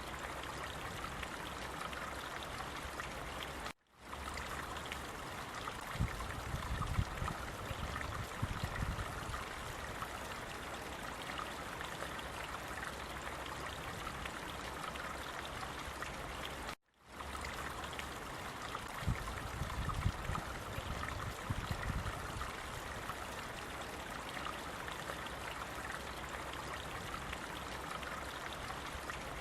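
Steady flowing water, like a small stream trickling and splashing. Twice it drops out briefly and restarts, with a low rumble under the water a couple of seconds after each restart: the same short recording looped.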